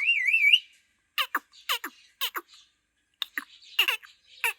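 Pet green parrot calling: a brief warbling whistle, then two runs of short, sharp falling chirps with a laugh-like giggling quality.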